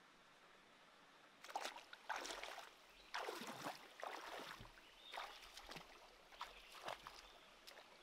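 Bare feet wading through a shallow, rocky stream, splashing and sloshing the water with each step. The splashes start about a second and a half in, after faint hiss, and come irregularly, roughly one a second.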